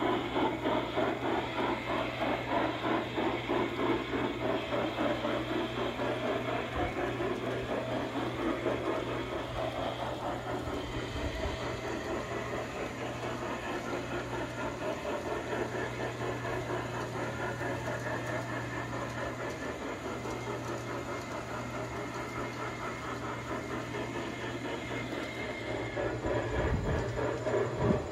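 G scale model train rolling across a welded steel truss bridge, with a steady, rapid rhythmic clatter. The clatter eases off somewhat in the middle and grows louder again near the end.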